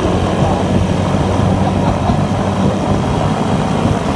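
Suzuki Raider 150 motorcycle's single-cylinder four-stroke engine running steadily while riding along, heard with heavy wind noise on a phone microphone.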